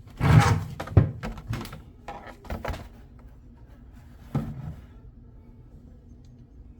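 A series of knocks and thunks, the loudest in the first second, followed by a quick run of sharp clicks and clacks and one more knock about four and a half seconds in.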